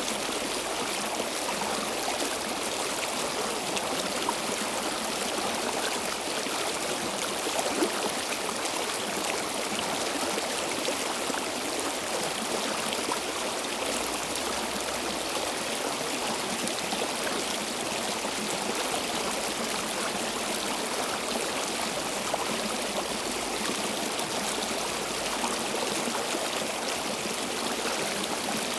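Stream water flowing steadily over stones, a constant rushing with small splashes and trickles.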